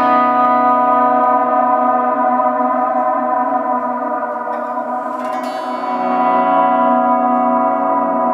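Electric guitar volume swells through a Mr. Black Supermoon modulated reverb pedal with its sway knob set deep: a chord swells in and rings on as a long, sustained reverb wash. A new note is picked about five seconds in, and the chord changes a second later.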